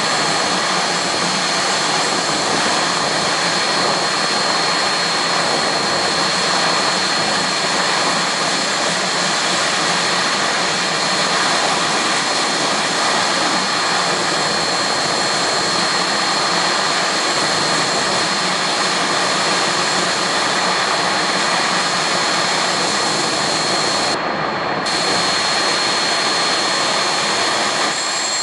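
Jet car's turbine engine running steadily with flame blasting from the exhaust: a continuous loud roar with a steady high whine over it.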